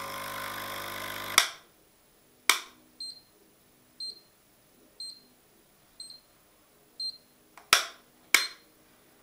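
Francis Francis X6 espresso machine's water pump running with a steady hum while delivering no water, cut off by a sharp click about a second and a half in. A faint tick follows about once a second, and near the end come two sharp clicks of the wall socket switch.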